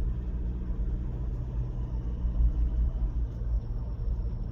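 Steady low rumble of a car cruising on an expressway: engine and tyre road noise heard from inside the cabin.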